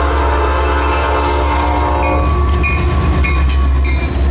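Locomotive air horn sounding a multi-note chord over a steady low rumble; about halfway the chord weakens and short high-pitched ringing notes come through, and the horn sounds again at the very end.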